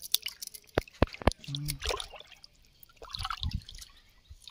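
Water splashing and dripping as hands rinse pieces of cleaned fish on a plastic plate in shallow river water, with a few sharp clicks about a second in.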